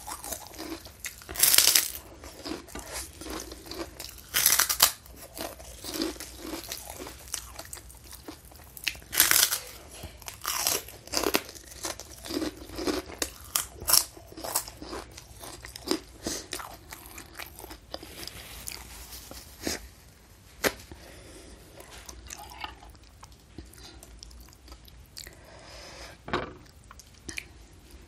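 Close-miked chewing with loud crunching bites of fried kerupuk cracker dipped in soup, irregular and loudest in the first half, with softer chewing in the second half.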